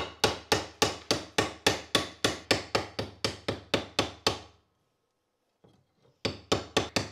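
Small hammer rapidly striking a heavily corroded old knife blade on a steel block, knocking off the rusted crust, about three to four blows a second, each ringing briefly. The blows stop for about a second and a half past the middle, then resume near the end.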